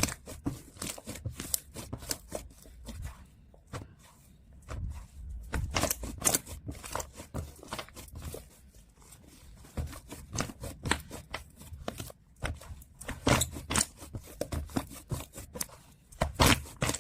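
Hands kneading and stretching a snow-type foam slime, which crackles and crunches in quick irregular clicks, with brief quieter pauses between handfuls.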